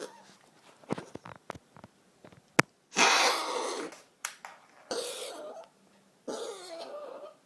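Coughing: three drawn-out coughs, each about a second long and the first the loudest, after a few short clicks and one sharp tap.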